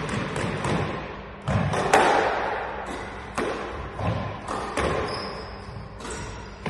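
Squash rally: sharp, echoing smacks of the ball off racquets and the court walls, one about every second, the loudest about two seconds in.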